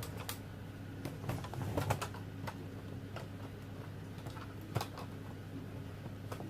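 Scattered light clicks and taps at irregular times from handling a makeup bag being opened and the hard makeup cases inside it knocking together, over a low steady hum.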